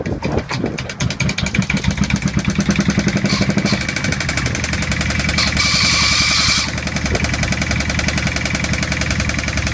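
Small 8 HP diesel engine catching and then running with a fast, even firing beat, louder for the first few seconds after it fires. A brief hiss comes in about six seconds in.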